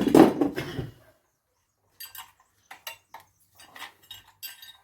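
Scrap metal parts from a dismantled washing-machine motor being handled: a loud clatter in the first second, then a string of short metallic clinks and knocks.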